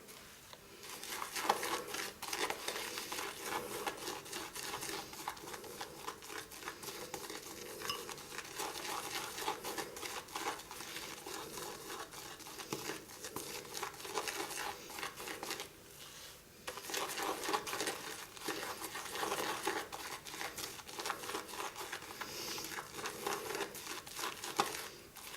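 Shaving brush whipping hard-soap lather in a mug: a steady, wet, crackly swishing of bristles through foam, with a brief pause about sixteen seconds in.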